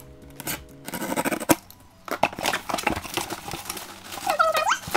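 A utility knife slicing through the packing tape on a cardboard shipping box in scraping strokes, with a sharp click about a second and a half in. The cardboard flaps then rustle and scrape as they are pulled open.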